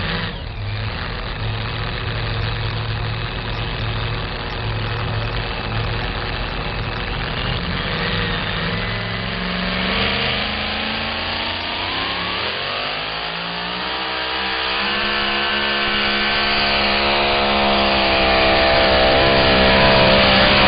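Supercharged, alcohol-fuelled pulling truck engine idling steadily, then revving up in a long rising climb about halfway through and holding at high revs under load as the truck makes its pull.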